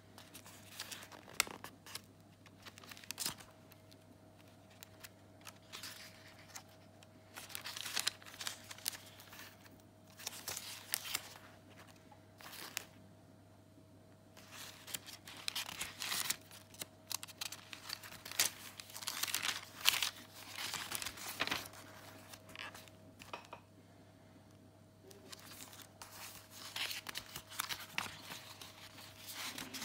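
Pages of a handmade paper junk journal being turned and handled: irregular papery rustling, flapping and crinkling in bursts, with quiet pauses between page turns.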